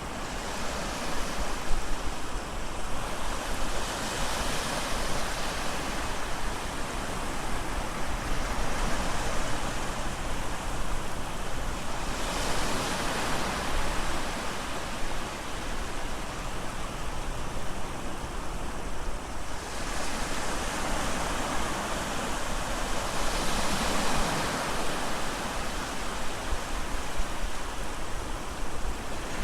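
Ocean surf: waves breaking and washing up the shore, a continuous rushing hiss that swells louder several times as each wave comes in.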